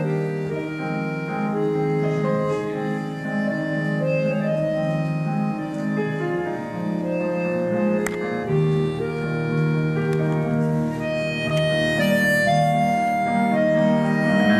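Accordion and grand piano playing together live, the accordion holding long reedy notes over the piano. A single sharp click about eight seconds in.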